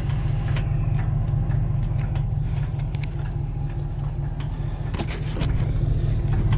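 Car engine running with a loud, steady low rumble and a fast, even pulse, with scattered light clicks and ticks over it.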